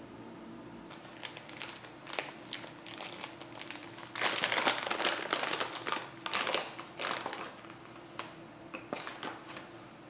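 A foil-lined coffee bag crinkling as it is handled. The crinkling starts about a second in, is densest and loudest midway, and thins to lighter rustles near the end.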